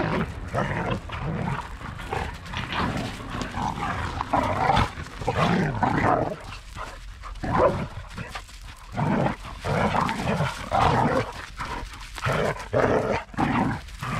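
Several dogs playing rough together, barking and growling in short irregular bursts.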